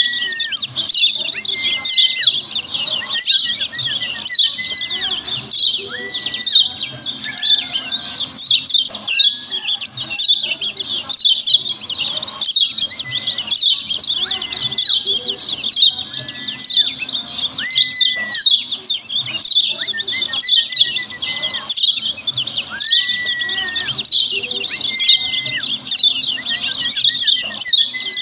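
Kecial kuning (lemon-bellied white-eye) giving a fast, unbroken chatter of sharp 'ciak' calls, about two a second. A lower whistled note that rises, holds and drops recurs every two to three seconds.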